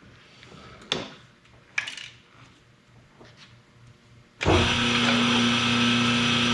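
A few light clicks of tooling being set up, then a cylinder honing machine switches on about four and a half seconds in. It runs at a steady speed, brushing out the bore of cylinder number 1.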